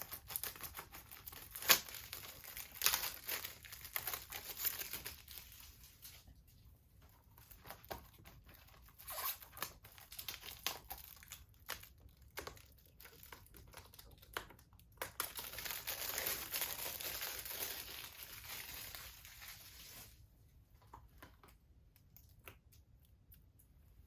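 Plastic shrink-wrap being torn and peeled off a Blu-ray case: crackling and crinkling with many small handling clicks, going much quieter about four seconds before the end.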